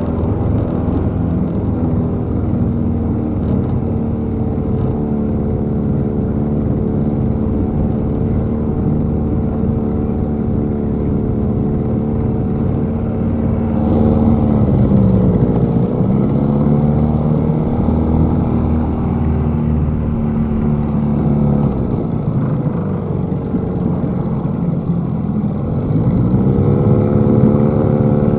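Small tiller-steered outboard motor pushing a jon boat, running steadily. Its pitch dips and comes back about halfway through, drops again later and rises near the end as the throttle is eased off and opened up.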